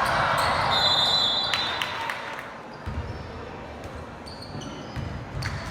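Basketball game sounds in a gym: a basketball bouncing on the hardwood court amid the murmur of spectators' voices, with a brief high-pitched tone about a second in.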